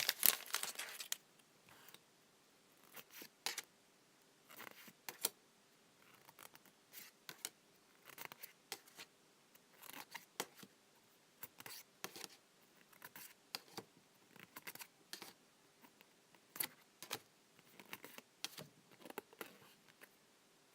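Pokémon trading cards being handled one at a time: soft, irregular snaps and slides of card on card, roughly one every second, with a little wrapper crinkle in the first second.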